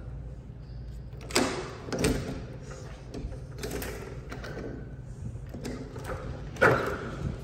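A balcony door being handled and opened: a few sharp knocks and rattles of its hardware, the loudest near the end, over a steady low hum.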